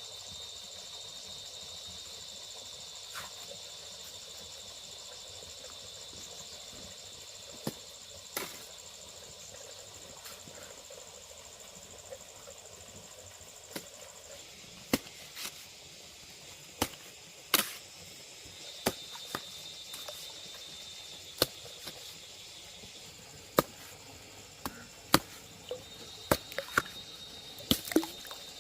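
Insects chirring with a steady high-pitched tone that fades and returns, over scattered sharp knocks and clicks that come more often in the second half.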